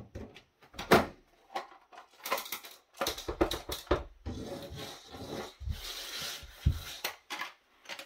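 A plastic electronics case being handled and pulled apart: a series of clicks and knocks as the unit is set down and turned over, then a few seconds of scraping and rubbing plastic as the shell halves come off the circuit board.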